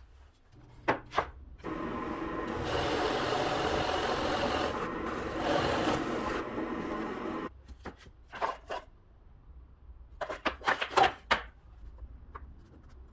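Drill press boring into a wooden board with a Forstner bit, a steady rasping cut of several seconds that stops suddenly. A few light knocks and clicks follow.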